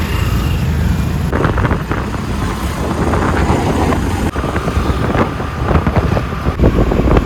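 A Royal Enfield Bullet's single-cylinder engine running on the move, largely buried under wind buffeting the microphone.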